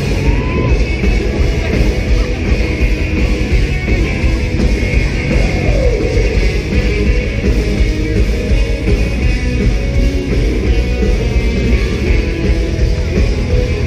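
Pop-punk band playing a song live, loud and unbroken, a full rock band sound of electric guitars, bass and drums.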